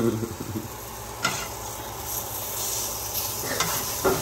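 Food sizzling in a frying pan, a steady hiss, with a short clack about a second in.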